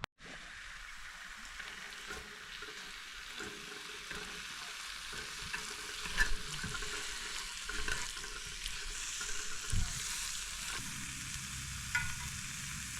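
Food sizzling in a hot pan, a steady frying hiss with scattered small pops and crackles, a little louder from about halfway through.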